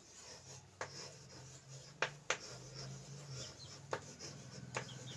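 Chalk writing on a blackboard: faint scratching of the strokes, with about five sharp taps as the chalk strikes the board.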